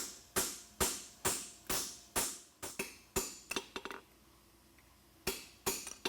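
Hand hammer striking a steel horseshoe on an anvil, each blow ringing, about two a second. The strikes are final light shaping to bring the shoe's branches in slightly. They pause for about a second before the blows resume near the end.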